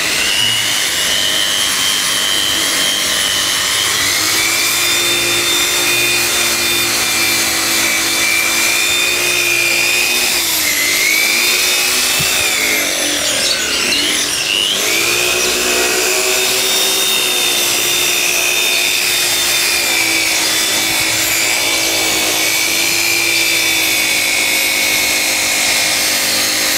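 Handheld electric rotary polisher running steadily, buffing compound into the wet-sanded clear coat of a car's painted wing mirror. Its motor whine dips in pitch a couple of times about halfway through, then settles back.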